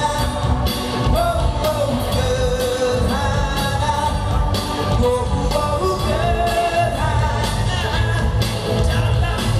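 A man singing a held, sliding melody into a microphone at a live concert, backed by a band with a steady drum beat and heavy bass in a rock-and-roll style.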